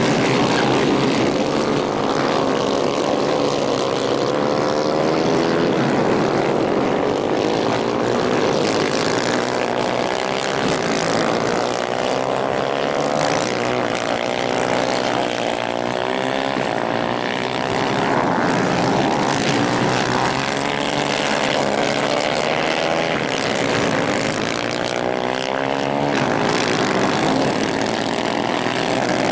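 Several 250 cc racing kart engines buzzing together, their pitches repeatedly rising and falling as the karts accelerate and back off through the corners.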